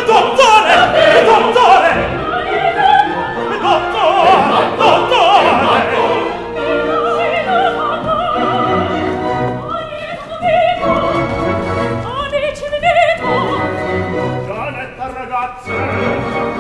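Opera ensemble of solo voices and chorus singing in Italian with orchestra. Dense, overlapping voices with vibrato give way about six seconds in to shorter, separated phrases.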